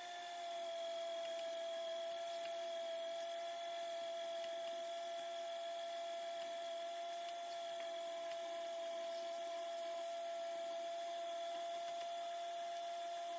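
A faint, steady whine holding one pitch, with weaker higher tones above it.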